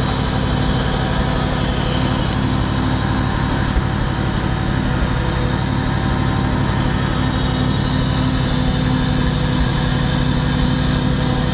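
A 1990 Chevrolet tow truck's 454 fuel-injected V8 runs at a steady idle, a constant hum with no change in speed.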